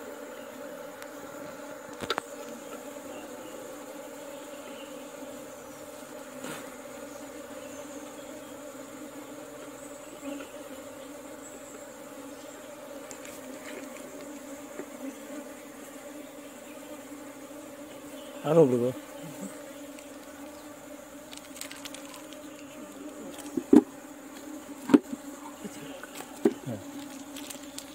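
Honeybees buzzing steadily in and around a wooden hive box. About two-thirds of the way through there is a brief, louder wavering sound, and near the end come a few sharp knocks as the wooden box is handled.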